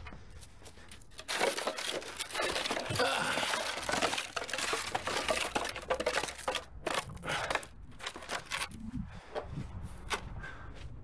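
Paper sack of concrete mix crinkling and tearing as it is handled and opened: a dense rush of rustling for about five seconds, then scattered knocks and rustles.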